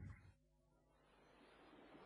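Near silence: a rumbling sound dies away at the very start, then a faint hiss slowly grows louder.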